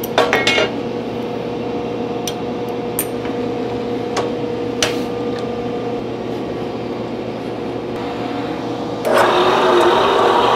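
Short metal clicks and taps as flat bar stock is set and clamped in a metal-cutting band saw's vise: a quick cluster at the start, then single taps, over a steady hum. About nine seconds in, a louder steady machine noise starts up.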